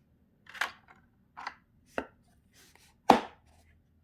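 Hard tools being handled and set down on a tabletop: four sharp knocks, the loudest about three seconds in.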